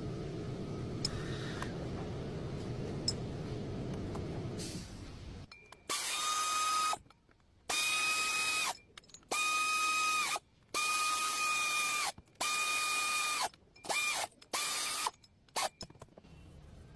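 A steady low rumble, then about seven short runs of a small power tool's motor, each a steady whine up to a second long that starts and stops sharply.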